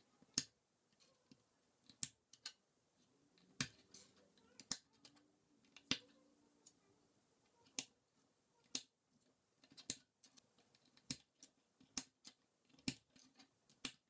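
Plastic K'NEX connectors and rods snapping together and clicking on a tabletop: a dozen or so sharp clicks at uneven intervals of about half a second to two seconds.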